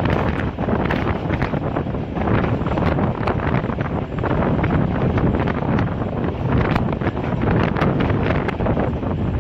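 Wind buffeting a microphone held out of a moving passenger train, over the steady running noise of the carriage on the rails, with scattered clicks.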